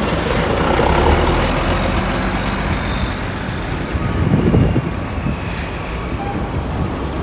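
Heavy diesel buses running and moving slowly past, louder about four and a half seconds in, with strong wind blowing on the microphone.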